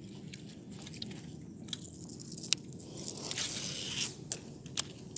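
Baitcasting reel and rod being handled: scattered sharp clicks, and a rushing whir of about a second that cuts off sharply about four seconds in, over a steady low hum.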